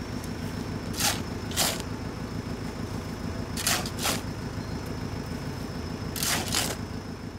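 Backhoe loader's diesel engine idling steadily, with shovels scraping and scooping broken asphalt from the road surface in three pairs of quick strokes.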